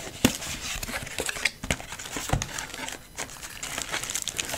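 Cardboard box being opened and handled: a sharp knock about a quarter second in, then scattered taps and scrapes, and thin plastic packaging crinkling near the end as the contents are lifted out.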